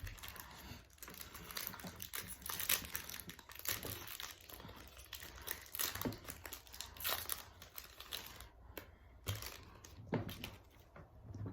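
Foil trading-card booster pack wrapper being crinkled and torn open by hand: irregular crackling that goes on for several seconds, easing off briefly near the end.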